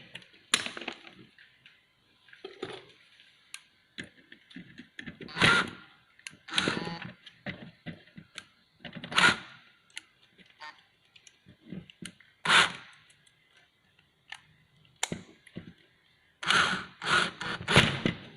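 Irregular clatter and knocks of hand work on a bench: tools, plugs and wiring being handled and set down, about a dozen separate bumps with quiet gaps between them.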